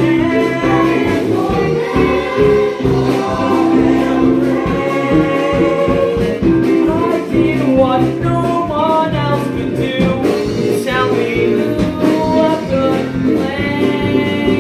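Music: a song sung over instrumental backing.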